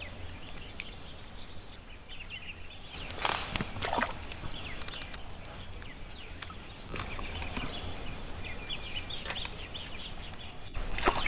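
Insects in the streamside vegetation trilling, a continuous high-pitched steady tone, with a few faint rustles or knocks mixed in.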